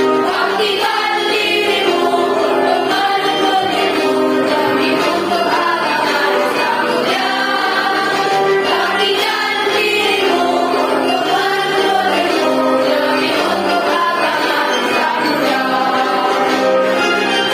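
A school choir of young students singing a march together in held, steady notes over musical accompaniment.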